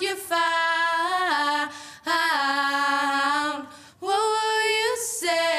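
Female vocal duo singing unaccompanied, long held notes in phrases with short breaks about two seconds in and again about four seconds in.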